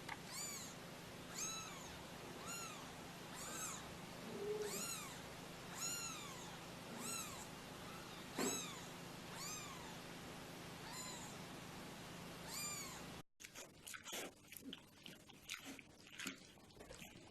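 A cat meowing over and over, about a dozen short high-pitched meows roughly one a second, each rising then falling in pitch; near the end it cuts off abruptly to faint scattered clicks.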